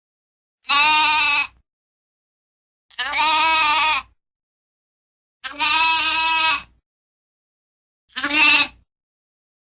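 Lamb bleating: four separate bleats with a quavering pitch, the last one shorter, with silence between them.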